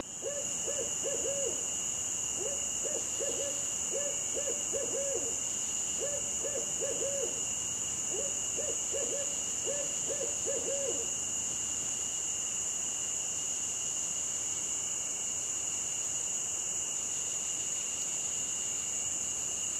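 An owl hooting at night in short runs of three or four quick notes, falling silent about eleven seconds in, over a steady high-pitched chorus of night insects.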